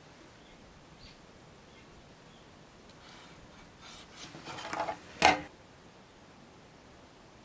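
Thin metal being handled on a wooden worktop: scraping and rubbing from about three seconds in, ending in one sharp metallic clack a little after five seconds.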